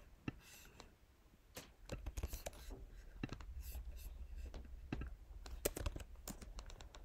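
Faint, scattered clicks and taps of a computer mouse and keyboard as text is copied and pasted, over a faint low hum.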